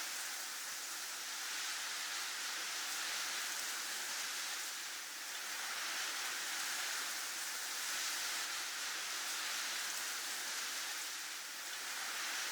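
Snowstorm wind blowing: a steady hiss that swells and eases slowly every few seconds.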